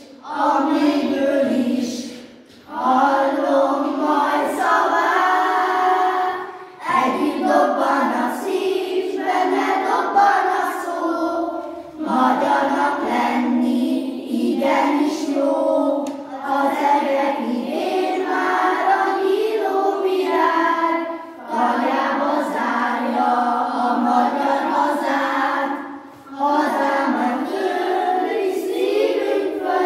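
A small choir of young children singing a song together in Hungarian, unaccompanied. They sing in phrases of a few seconds, with short breath pauses between them.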